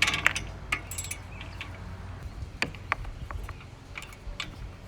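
Irregular light clicks and metallic clinks of small hardware being handled, over a low steady hum.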